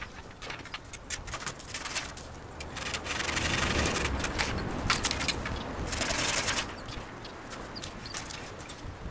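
Hand saw cutting through a tree branch: a run of rasping strokes, loudest from about three to four and a half seconds in and again around six seconds.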